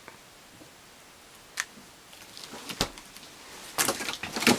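Refrigerator freezer door thudding shut about three seconds in, then a cluster of clicks and rattles near the end as the fridge door is pulled open.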